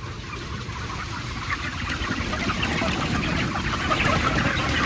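A large flock of broiler chickens in a chicken house making a dense mass of peeping and clucking, over a steady low rumble. The flock sound grows louder over the first few seconds.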